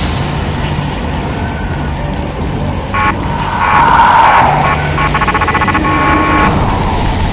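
Film sound effects for a nightmare scene: a loud steady rumble, joined about three seconds in by a swelling rush and rapidly pulsing tones that stop about a second before the end.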